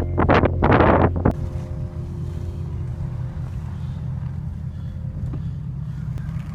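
Strong storm wind buffeting the microphone as a steady low rumble, with a few loud gusts in about the first second.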